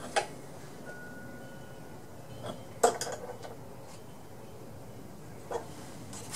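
A few light metal clinks and clicks from hand work on a small mower engine while the ignition coil's air gap is being set, the sharpest clink just under three seconds in.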